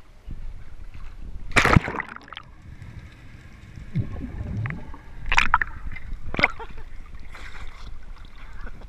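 A person plunging into the sea from a rock: one loud splash about a second and a half in. It is followed by muffled underwater gurgling and bubbling, then two sharp splashes and sloshing as the waterproof action camera bobs back up through the surface.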